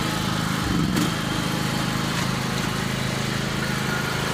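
Riding lawn mower engine running steadily, with one brief knock about a second in.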